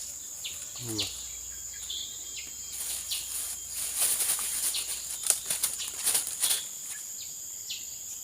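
Steady, high-pitched insect drone with a few short chirps. From about three to six and a half seconds in, a louder spell of rustling and sharp clicks.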